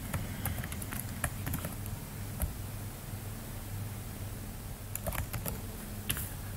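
Scattered light clicks and taps of computer input over a steady low hum, during a copy-and-paste of a selection on screen.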